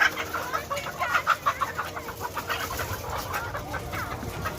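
A flock of chickens clucking: many short, overlapping calls, busiest in the first second or so.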